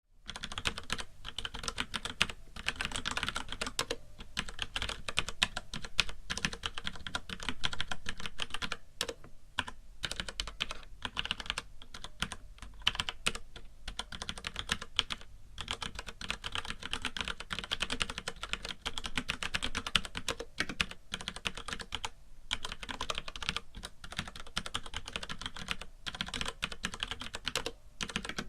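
FILCO Majestouch mechanical keyboard with Cherry MX Brown (tactile) switches being typed on quickly and continuously: a dense clatter of key clicks with a few short pauses.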